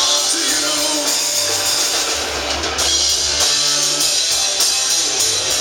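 Live rock band playing, with drum kit, cymbals, electric guitar and bass, recorded at a concert through a compact camera's built-in microphone.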